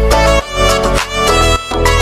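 Background music: a melodic instrumental track with a fiddle-like lead over a steady beat.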